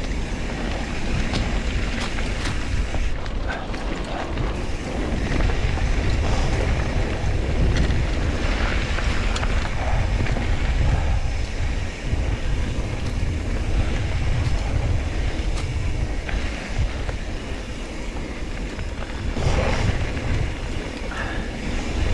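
Wind buffeting the action camera's microphone and mountain-bike tyres rolling over dirt singletrack at speed, a steady rushing noise with scattered light clicks and rattles from the bike.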